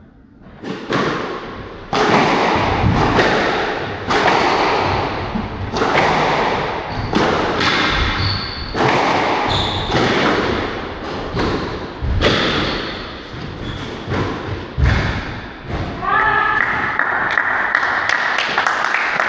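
A squash rally: the ball is struck by rackets and hits the court walls about once a second, each impact sharp and ringing in the court. About three seconds before the end the rally stops, and a voice cries out over crowd noise.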